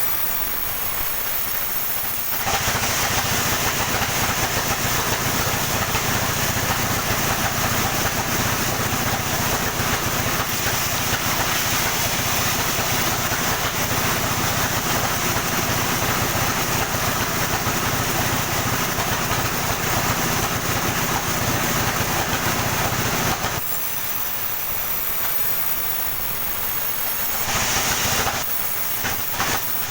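Sawmill cutting through a coconut palm trunk: a loud, steady sawing noise from about two seconds in until about 23 seconds in, over the constant running of the mill's motor. After the cut the machine runs unloaded, with two brief louder spells near the end.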